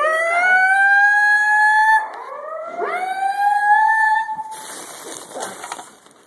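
Building fire alarm sounding its evacuation whoop: two slow rising tones, each about two seconds long, then it stops a little after four seconds in, followed by a brief rustling hiss. The alarm has been declared a false alarm.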